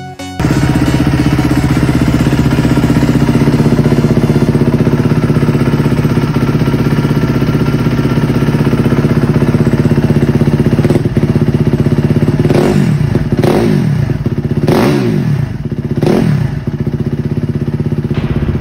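Suzuki RM-Z250 four-stroke single-cylinder dirt bike engine running at a steady idle, with a few quick blips of the throttle rising and falling in pitch near the end. The engine has a freshly rebuilt top end with new valve buckets shimmed to spec.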